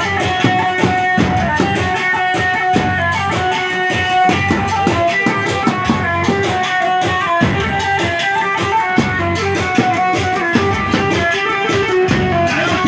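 Arabic dance music played live on an electronic keyboard: a melody over a fast, steady drum beat, with no singing.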